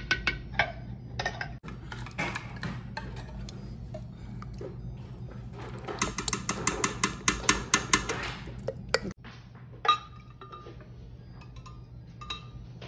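Metal spoon clinking and scraping against a stainless steel pot while stirring a thick coquito mixture, in quick runs of taps, the busiest about six to eight seconds in, with a few single clinks later.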